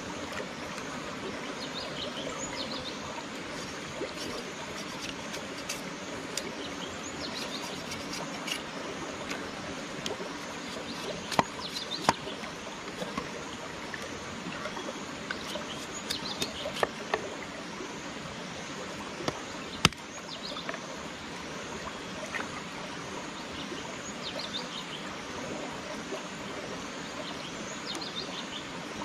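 Shallow rocky stream running steadily over stones, with small birds chirping now and then. A few sharp knocks and clicks cut through, the loudest about halfway in, as a machete chops and splits a bamboo strip.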